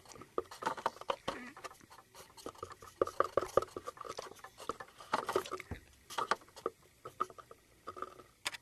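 Light, irregular tapping and clicking as small plastic toy figures are handled and moved about.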